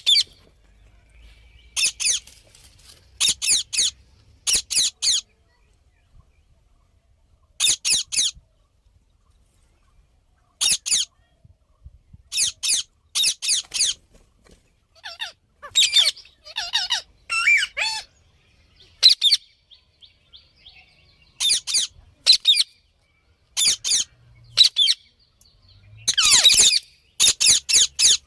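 Indian ringneck parakeet giving high-pitched calls in quick bursts of two to four notes, with pauses between. Some gliding, more varied calls come midway, and a longer, rougher call near the end.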